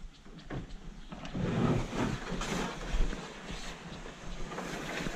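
Wind buffeting the microphone, heaviest in a gust from about a second to three seconds in, with a few light knocks.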